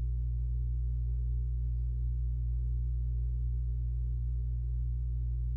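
A steady low hum that does not change, with nothing else heard over it.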